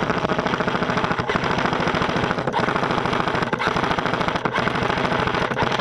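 Airsoft electric gun firing on full auto, a long unbroken stream of rapid, evenly spaced shots.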